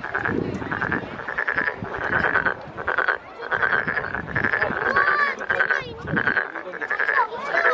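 Frog calling with its vocal sacs ballooning: a rattling, rapidly pulsed croak repeated in quick succession, about one or two calls a second.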